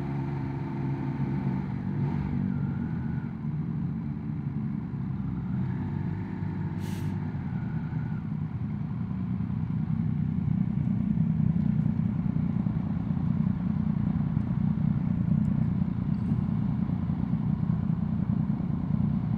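Triumph Speed Triple 1200 RS three-cylinder engine running at low speed, heard from a microphone inside the rider's helmet. From about halfway through, the rumble grows louder and denser as the bike slows and idles among a group of other motorcycles. There is one brief hiss near the start.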